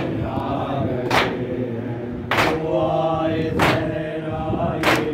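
Men chanting a Shia nauha (mourning lament) together while beating their chests in unison (matam): a sharp slap about every second and a quarter, keeping the beat of the chant.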